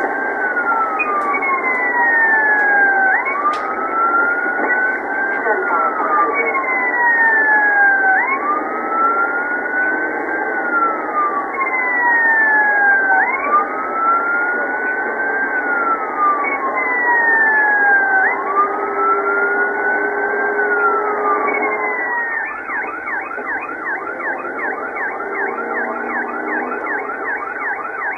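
Police car siren during a pursuit, on its slow wail with the pitch sweeping up and down every few seconds. Near the end it switches to the fast yelp.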